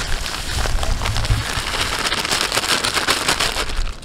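Dry fishing groundbait poured in a stream from its bag into a collapsible bucket: a steady granular hiss of fine particles pattering onto the bucket and the growing pile, which stops near the end.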